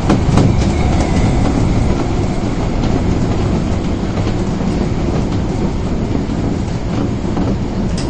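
Osaka Metro Tanimachi Line subway train running between stations, heard from inside the car: a steady rumble of wheels and running gear, with a few rail clicks near the start and again near the end.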